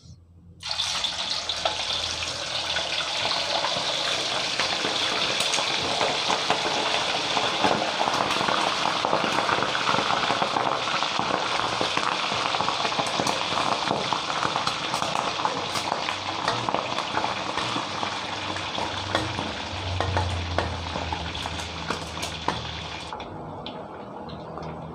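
Chicken feet deep-frying in very hot oil in a wok: a loud, dense sizzle full of crackles that starts suddenly about half a second in as they go into the oil, then eases to a softer sizzle near the end.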